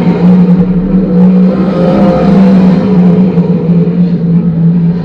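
A 360 sprint car's V8 engine running hard at high revs on a qualifying lap, its pitch holding fairly steady with small rises and dips.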